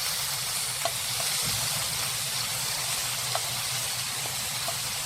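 Food cooking in a pan with a steady sizzling hiss, and a few faint clicks along the way.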